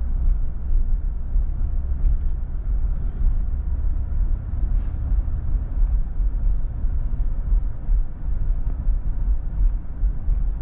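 Truck driving, with a steady low rumble of engine and road noise.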